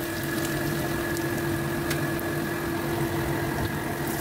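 A steady mechanical hum holding one low tone and one higher tone, over a faint sizzle of shallots, garlic and chillies frying in a wok.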